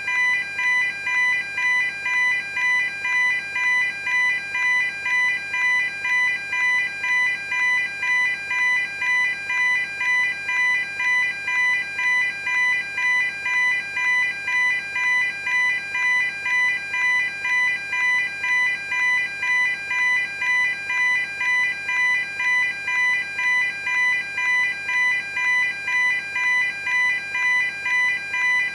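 Electronic railway level crossing alarm ringing continuously, a bright ringing tone pulsing evenly at about three strokes every two seconds.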